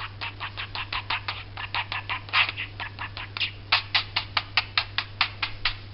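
A quick series of kissing smacks, about five or six a second, getting louder and more regular about halfway through.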